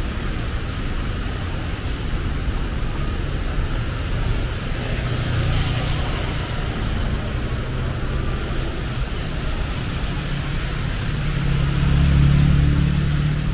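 Traffic on a rain-wet road: a steady rumble of engines with tyres hissing through water. A vehicle swishes past about five seconds in, and near the end a motorcycle engine passes close and loud.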